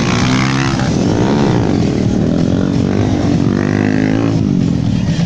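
Motorcycle engines revving, the pitch rising and falling several times as the riders work the throttle to hold wheelies.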